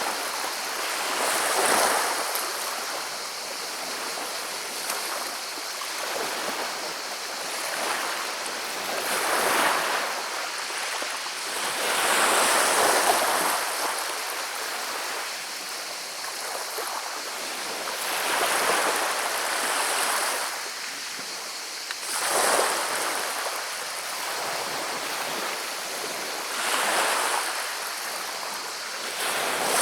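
Sea waves breaking on a pebble beach, each backwash dragging and rattling the pebbles, in swells every few seconds.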